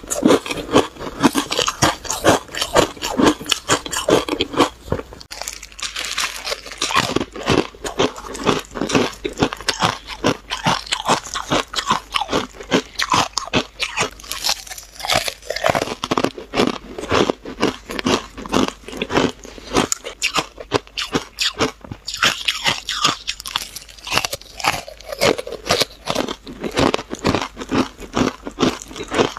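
Powder-coated ice chips bitten and chewed close to a clip-on microphone: a rapid, continuous run of crisp, crackly crunches.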